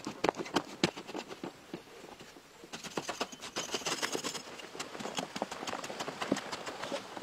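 A hoe chopping into packed sandy earth: a quick run of sharp strikes, a stretch of scraping hiss about three seconds in, then more scattered strikes.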